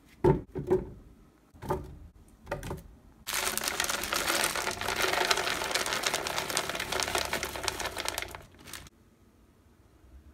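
Fruit pieces dropped one at a time into an empty plastic Vitamix blender jar, four thuds in the first three seconds. Then wild blueberries are poured in, a dense rattle lasting about five and a half seconds that stops suddenly.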